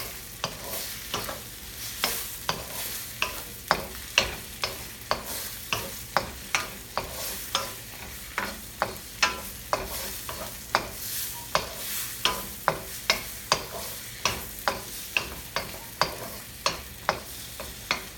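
Small red tomatoes sizzling in hot oil in a frying pan while being stir-fried, a utensil knocking and scraping against the pan about two to three times a second.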